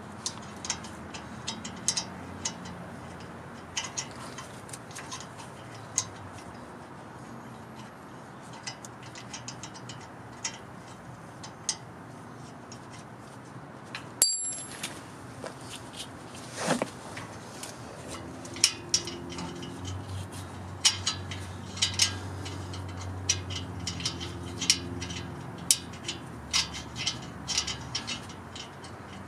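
A hand ratchet clicks in short runs as the bolts of a front wheel bearing hub assembly are drawn in to seat it in the Dana 60 steering knuckle, with scattered metal clinks of tools. A low steady hum joins in during the later part.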